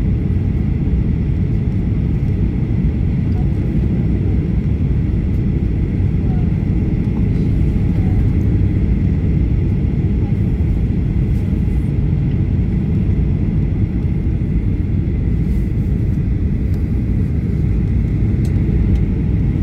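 Steady cabin noise inside a Boeing 737-800 on approach through cloud: a constant low rumble of engines and rushing air, with a faint high steady tone above it.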